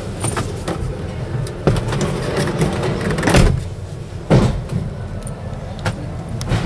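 Background din of a busy motor-show hall, with several sharp knocks, the loudest about three and a half and four and a half seconds in.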